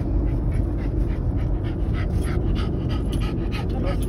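Patterdale terrier panting quickly with excitement, about three breaths a second, over a steady low rumble from the car.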